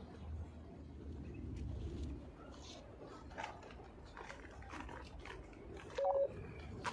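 Crinkly rustling of a plastic fertiliser bag being handled. About six seconds in, a short two-note bird call sounds, the loudest thing heard.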